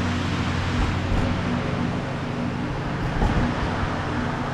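Steady background mechanical hum under a noisy rush, with a couple of faint knocks about a second in and just after three seconds.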